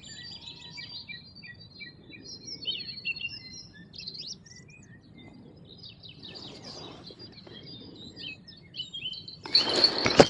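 Songbirds chirping and calling, many short overlapping calls and trills. About nine and a half seconds in, a sudden loud rustle of handling as the fishing rod is grabbed and lifted.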